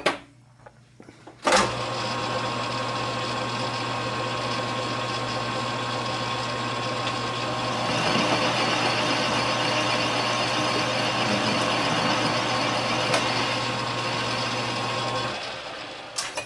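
Metal lathe switched on with a knock about a second and a half in, then running steadily with a motor hum and whine as it turns an off-centre metal block. The sound grows louder and rougher about halfway through as the tool takes a cut to bring the part down to size, and the lathe is switched off and spins down near the end.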